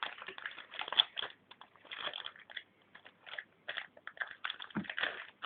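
Foil wrapper of a Yu-Gi-Oh booster pack crinkling as it is handled and torn open and the cards are pulled out, in quick irregular crackles.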